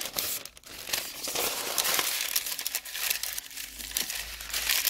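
Parchment paper crinkling as it is crumpled and pressed by hand into an air fryer basket: a continuous papery rustle full of small crackles, with a short lull about half a second in.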